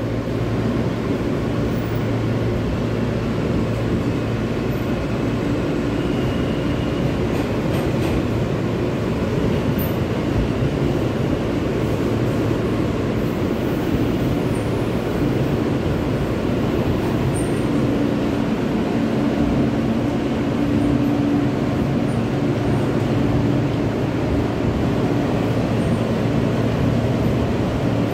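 An R160 subway car running through a tunnel, heard from inside the car: steady rumble of wheels on track with a low, even motor hum.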